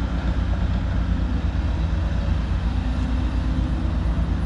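Heavy diesel engine running steadily, a deep even rumble with no revving or sudden knocks.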